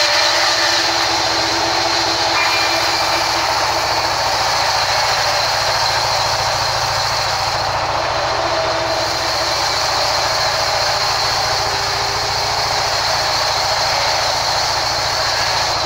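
Band sawmill running, its vertical blade ripping lengthwise through a rain tree log: a steady mechanical din of motor, blade and wood that holds at one level throughout.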